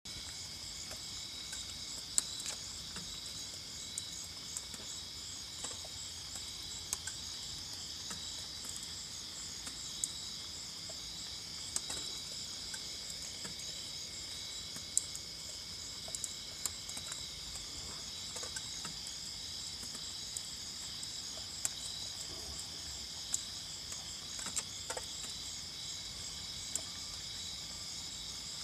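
Night chorus of crickets and katydids: steady, layered high-pitched trilling, one layer pulsing rapidly, with scattered single sharp ticks.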